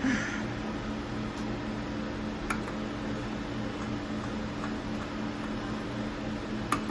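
Steady electronic hum of a slot machine and the room around it, with a short click about two and a half seconds in and a sharper one near the end.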